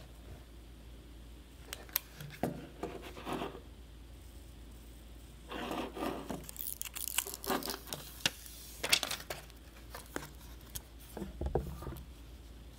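Plastic protective film being peeled and rubbed off a new iPhone SE by hand: several short crinkling, tearing rasps with small clicks and taps of handling in between.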